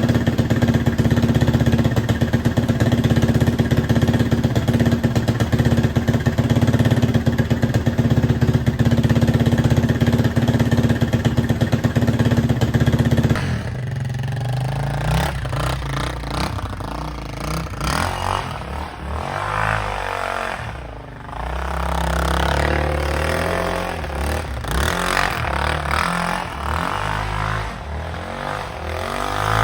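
Yamaha Raptor 660 ATV's single-cylinder engine running after carburettor work: a steady, even run for about 13 seconds, then an abrupt change to an uneven, rising-and-falling sound for the rest.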